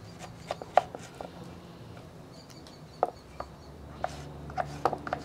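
Kitchen knife slicing a calabacita (Mexican squash) on a wooden cutting board: irregular sharp knocks of the blade hitting the board. They come in a few quick strokes about a second in, a single one around three seconds, and a run of several toward the end.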